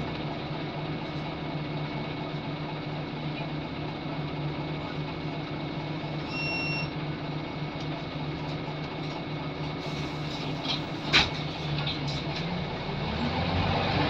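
Steady whirring hum of a Scania L94UB Wright Solar bus, heard from inside the saloon, with several even tones, one of them a thin high whine. A short electronic beep sounds about halfway through, a sharp knock comes about eleven seconds in, and the engine rises in pitch near the end.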